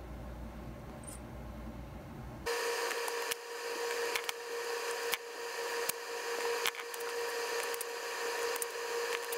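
Desoldering with a plunger-type solder-sucker soldering iron: a series of sharp clicks, roughly one a second, as solder is pulled from the chip's pads one by one. A steady whine and hiss set in suddenly about two and a half seconds in.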